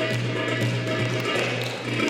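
Dance music played on a saz, with a steady low drone under quick plucked and tapped notes.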